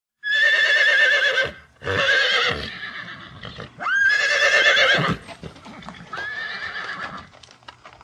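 Horses whinnying: four long, quavering neighs one after another, the third starting with a sharp rise in pitch and the last one quieter.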